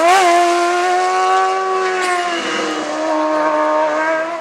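Hillclimb race car engine running hard at high revs, holding a steady note. Its pitch wobbles briefly at the start and drops a little about two seconds in, then it steadies again.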